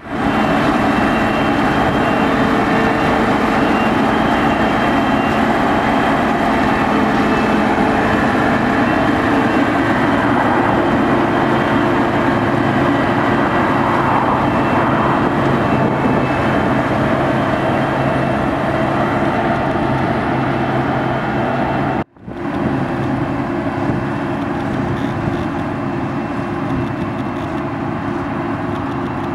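Heavy farm harvesting machinery running steadily under load: a diesel engine drone with a constant mechanical hum. About two-thirds of the way through it cuts off abruptly and resumes straight away with a slightly different tone.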